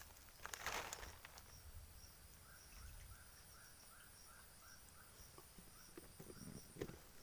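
Faint outdoor ambience: a steady high insect whine, with a brief rustle about half a second in. Around the middle a run of about nine quick chirps goes by, roughly five a second, and a few light clicks and taps come near the end.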